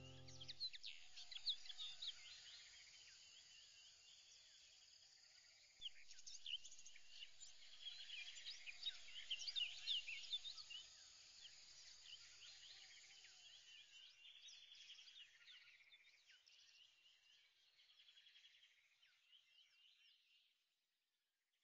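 Faint birdsong: many quick high chirps and trills, growing busier about six seconds in, then thinning out and fading away near the end.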